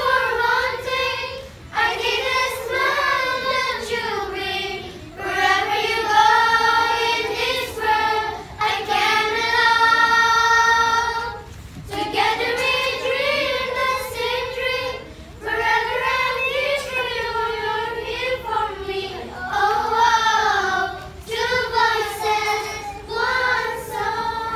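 A group of girls singing together in unison without accompaniment, in phrases broken by short pauses, with one long held note about ten seconds in.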